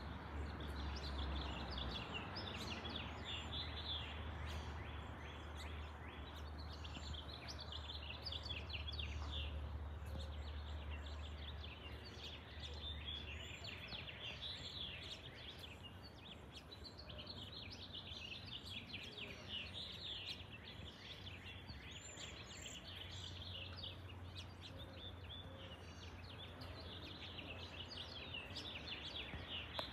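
Small birds calling throughout with many short, quick chirps, over a steady low rumble that drops out for several seconds in the middle.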